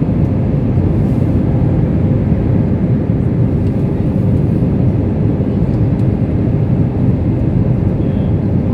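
Airliner cabin noise: a steady low rumble of jet engines and airflow, with a faint steady hum.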